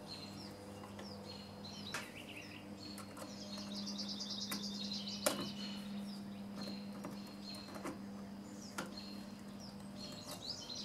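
A few faint clicks and snips of pliers working bare copper ground wire, the sharpest about five seconds in, over birds chirping and a steady low hum.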